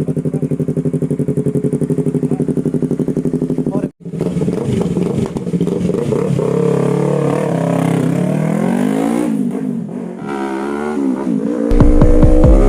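Yamaha R3's 321 cc parallel-twin engine running through an Akrapovic exhaust, idling with an even pulse, then after a brief break revved up and down several times. A loud low drone comes in near the end.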